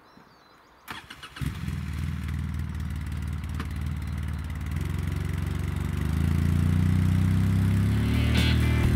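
Six-wheeled utility vehicle's engine starting about a second in after a few clicks, then running steadily and picking up, louder and a little higher, a few seconds later.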